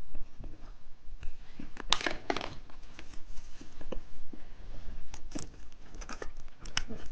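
Plastic candy packaging crinkling and crackling as it is handled, in irregular bursts, loudest about two seconds in.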